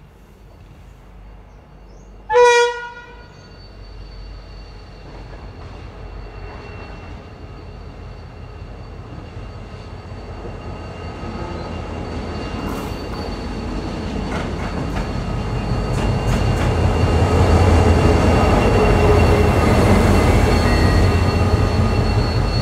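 Iarnród Éireann 071 class diesel locomotive with its General Motors engine sounds one short horn blast about two seconds in. Its engine then rumbles steadily, growing louder as the locomotive draws near and passes.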